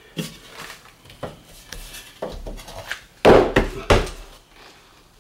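Knocks and clatter of laminate flooring boards being handled and set down, with a louder cluster of knocks about three seconds in.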